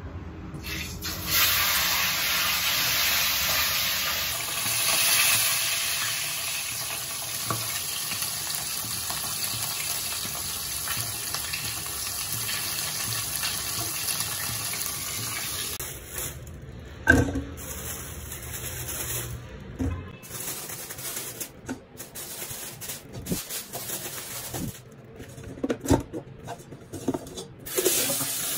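Hot oil sizzling loudly around a whole fish frying in a wok. The sizzle starts suddenly about a second in and stays steady for a long stretch. After that come a loud knock and scattered clicks and clatter, and near the end tap water runs into a pot of okra in a steel sink.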